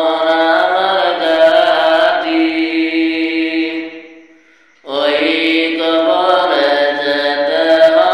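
A voice singing a Bengali Islamic gojol in long, drawn-out held notes. The singing fades away about four seconds in and starts again just before the five-second mark.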